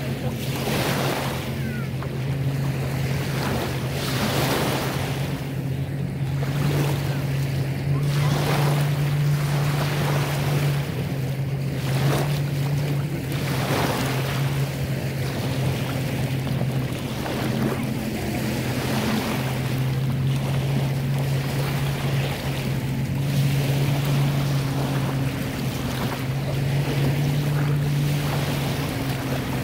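Small lake waves lapping and breaking at the water's edge, a wash that swells every couple of seconds, over a steady low drone of a motorboat engine.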